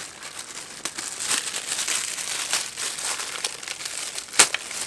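Clear plastic wrapping crinkling and rustling as it is handled and pulled open, with one sharp click a little over four seconds in.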